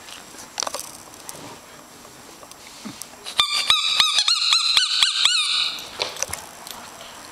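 A dog's squeaky ball being squeezed in a quick run of about ten squeaks over two seconds, a little past the middle, with faint clicks and rustles before and after.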